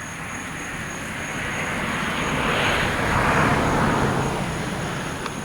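A passing engine, a vehicle or low aircraft going by: a rushing sound that swells to its loudest about three seconds in, drops in pitch and fades. Crickets chirp steadily throughout.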